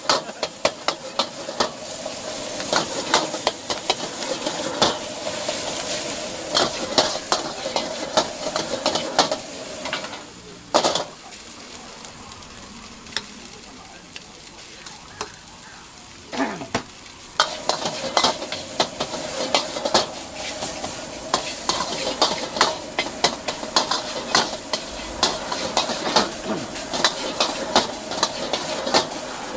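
Food sizzling in a hot wok while a metal spatula scrapes and clanks against it in quick, irregular strokes. The stirring goes quieter for several seconds midway, with only a few knocks, then picks up again.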